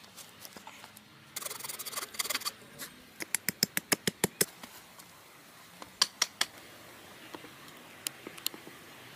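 Wooden poles being handled: a brief rustle and scrape, then a quick run of about ten sharp knocks, followed by a few more single knocks.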